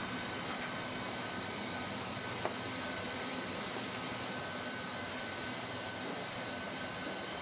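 Handheld hot-air roofing welder's blower running steadily: a constant airy hiss with a faint steady whine. A single light click comes about two and a half seconds in.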